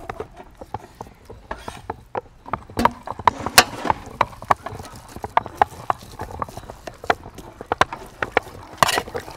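Boiled potatoes and peel dropping onto aluminium plates as they are peeled by hand: irregular light taps and clinks on the metal, busiest about three seconds in and again near the end.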